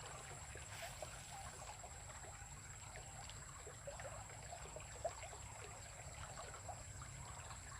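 Faint trickling water in a small ditch, a steady low wash full of tiny irregular drips and ticks, with one soft knock about five seconds in.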